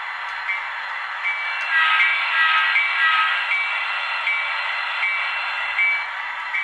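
Sound decoder of an HO-scale Bachmann DD40AX model diesel locomotive ringing its locomotive bell, a steady ding about every three-quarters of a second over a steady rushing noise. The sound swells, with extra tones, for about a second and a half from about two seconds in.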